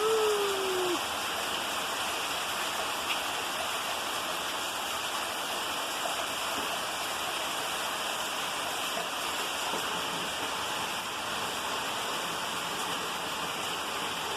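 Steady downpour of rain, an even wash of noise. A short falling voice-like call sounds in the first second.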